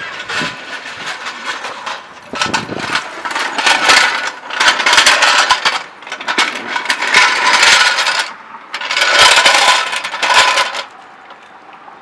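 Metallic clinking and rattling of hand tools in five bursts, each lasting one to two seconds, with short pauses between them.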